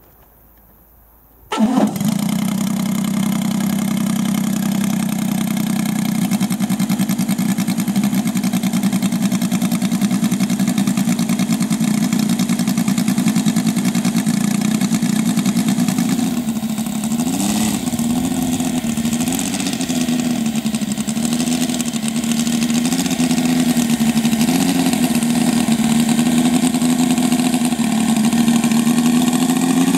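Saito FA-450R3 three-cylinder four-stroke radial engine of a quarter-scale model biplane catching about a second and a half in and settling into a steady idle. From about halfway its speed rises and falls a little, again and again, as the throttle is worked.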